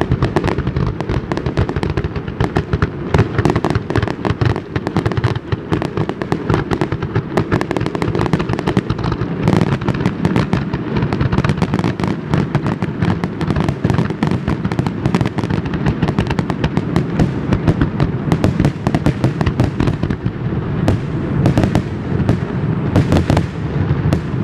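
Fireworks display going off continuously: a dense barrage of rapid bangs and crackles over a steady rolling rumble of booms, carried across the river.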